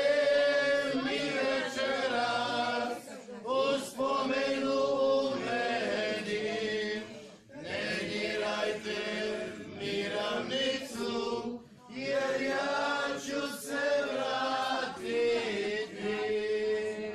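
A group of people singing together: a slow, chant-like song in four long sung phrases, with short breaks between them.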